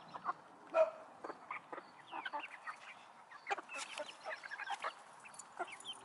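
Several chickens clucking and chirping in short, scattered calls, with one louder call about a second in.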